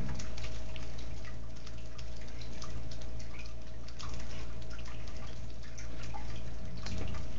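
Bernese mountain dog licking another dog's fur and face: a stream of small, wet smacking and lapping clicks, over a steady low hum.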